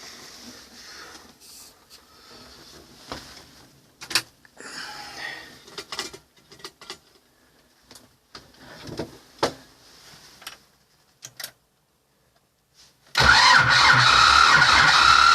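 Scattered clicks and knocks, then about 13 seconds in the T-25 tractor's two-cylinder air-cooled diesel engine comes in abruptly and runs loudly with a steady high-pitched whine over its low beat.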